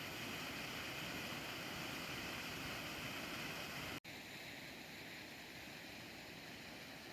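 Steady outdoor rushing noise with a brief break about four seconds in, after which it goes on softer and duller.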